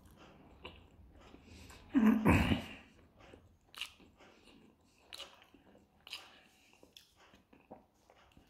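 A man chewing a mouthful of pljeskavica in a bread bun, with soft, wet chewing and small mouth clicks. One louder, brief mouth noise comes about two seconds in.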